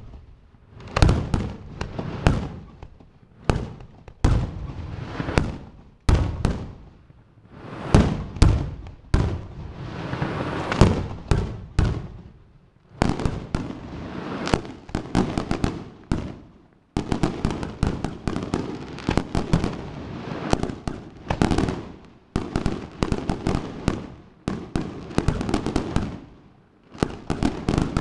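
Fireworks display: aerial shells bursting with loud bangs one after another, separate blasts at first, then a dense rapid barrage from about halfway through.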